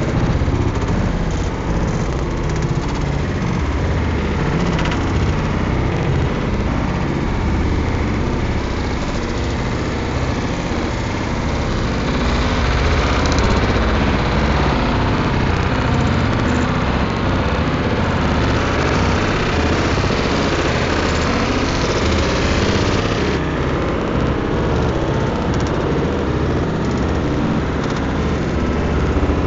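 Automatic car wash heard from inside the car's cabin: a steady rumble and wash of water jets and machinery against the body. A brighter hiss joins about twelve seconds in and cuts off suddenly about two-thirds of the way through.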